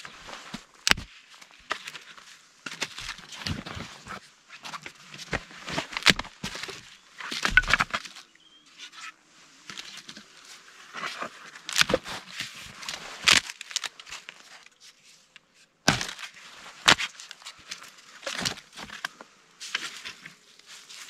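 Dry sticks and branches being handled and broken: irregular crunching and cracking, with a quieter pause near the middle.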